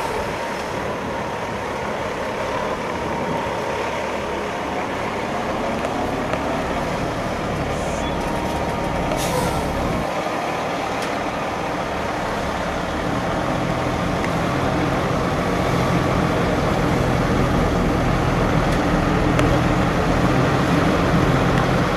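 Diesel engine of a semi-truck pulling a heavy trailer at low speed, a steady rumble that grows louder in the second half as it comes closer. A short hiss of air sounds about nine seconds in.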